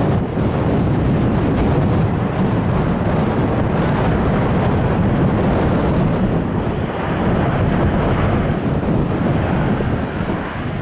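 Jet aircraft roar mixed with wind buffeting the microphone. It is a loud, steady rumble, with a little more hiss coming in about two-thirds of the way through.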